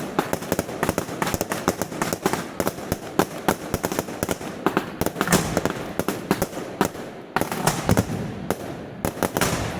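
Yanshui beehive fireworks: a rack of bottle rockets going off in a rapid, continuous barrage of cracks and bangs, many every second.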